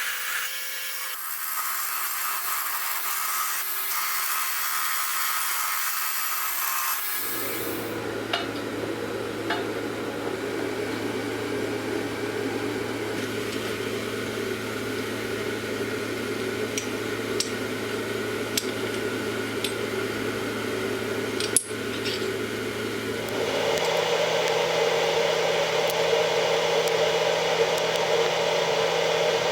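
Workshop power tools in use. First a hissy, high-pitched grinding or cutting noise for about seven seconds. Then a motor-driven tool runs steadily with a low hum and occasional light clicks, and about 23 seconds in it steps up in pitch and gets louder.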